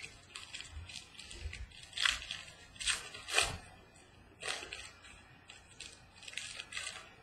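Wrapper of a 2014 Donruss baseball card pack being torn open and crinkled by hand, in several short crackly bursts, the strongest around two to three and a half seconds in.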